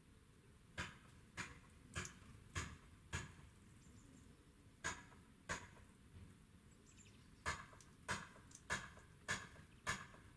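Sharp, dry taps from a small bird pecking at a feeder, about one every 0.6 seconds in three runs: five taps, a pause, two more, a pause, then another quick series.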